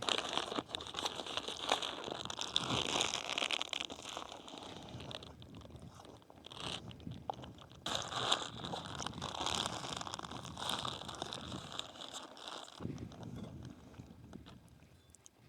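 A person biting into and chewing a sandwich with fresh vegetables, crunching close to the microphone. The crunching thins out over the last few seconds.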